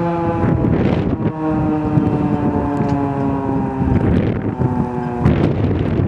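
Federal Signal 2001-SRN rotating outdoor warning siren sounding its single steady tone, the pitch slowly falling. The tone drops out briefly about half a second in and again near the end as the rotating horn turns. Wind buffets the microphone throughout.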